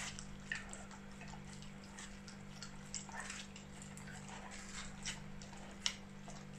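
Siberian husky puppy licking and lapping at the juicy flesh of a watermelon slice: soft, wet smacks and clicks scattered through, the sharpest near the end.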